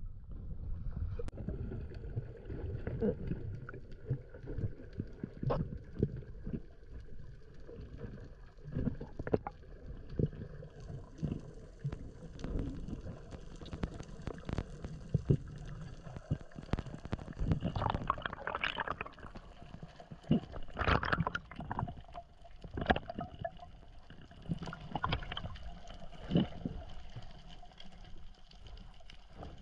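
Water sounds heard from a spearfishing dive: gurgling and sloshing over a low rumble, with many scattered clicks and knocks and a few louder gushes in the second half.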